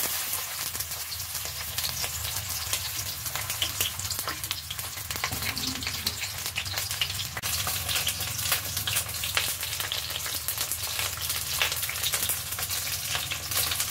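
Stuffed green capsicums (bell peppers) shallow-frying in a few tablespoons of oil in a non-stick kadai, with a steady sizzle and a dense crackle of small pops.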